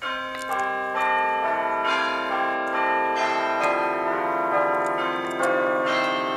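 Chiming bell music: a new bell note struck about every half second, each ringing on so the notes overlap into a sustained, shimmering chord.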